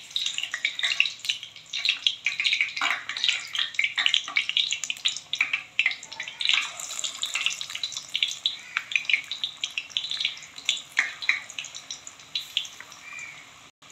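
Potato and gram-flour (besan) pakora batter deep-frying in hot oil: a dense, steady crackling sizzle, thinning out and growing quieter near the end.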